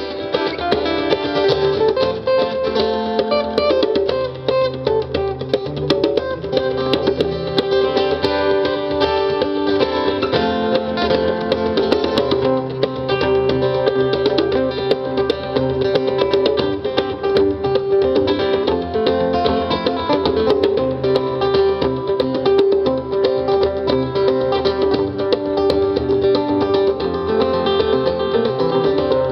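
Live instrumental music: acoustic guitar picking steadily with a djembe hand drum, no singing.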